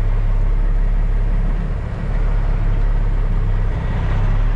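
Peterbilt 379's CAT C15 diesel engine running steadily at low revs, heard from inside the cab, as the truck creeps through a tight turn; it eases off briefly about two seconds in.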